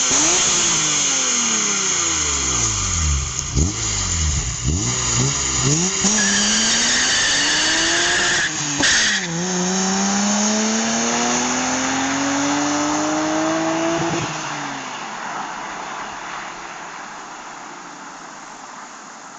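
BMW E36 M3 straight-six through a Supersprint exhaust with the catalytic converter removed. It is revved quickly several times, then pulls hard with an upshift about nine seconds in, and fades away after about fourteen seconds as the car moves off.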